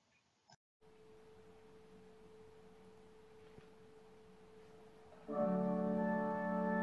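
Organ starting a hymn introduction: a faint single held note, then a full, much louder chord comes in about five seconds in.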